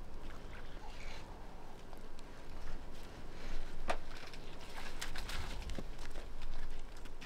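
Waterbuck drinking at a waterhole: soft lapping and splashing of water, with scattered small clicks and one sharp tick about four seconds in.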